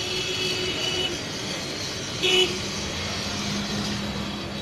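Steady street traffic noise, with a short, loud, high-pitched tone a little past halfway and a low steady hum through the second half.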